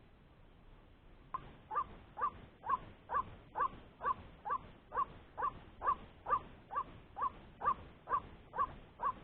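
White-breasted waterhen (ruak-ruak) giving its repeated croaking 'kruak' call, about two calls a second, starting about a second in and going on steadily.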